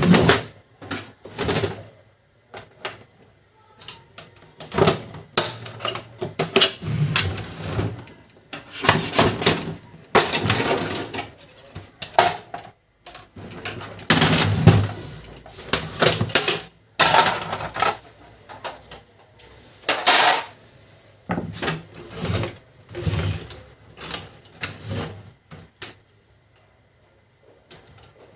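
Irregular clatter, clicks and scraping of a Canon LBP2900 laser printer's casing and parts being handled and pried apart during disassembly, with a few longer rattling scrapes.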